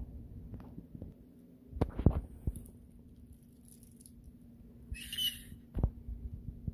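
Scattered knocks and thumps over a steady low hum, loudest about two seconds in, with a brief high hiss about five seconds in.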